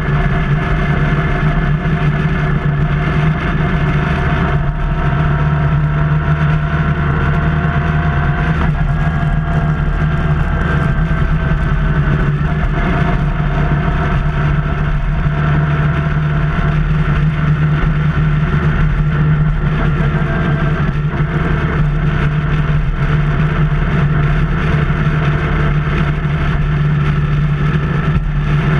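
Motorcycle engine running steadily while riding at cruising speed, heard from the rider's seat, with steady road and wind noise.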